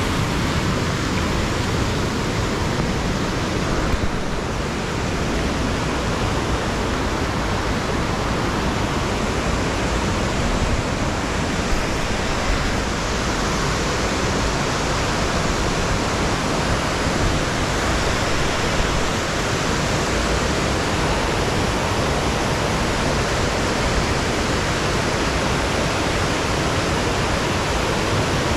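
Buttermilk Falls, a gorge waterfall, pouring steadily: an even, unbroken rush of falling water.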